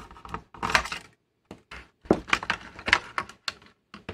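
Irregular clicks, taps and knocks of the scanner's plastic case and small plastic and metal parts being handled during disassembly.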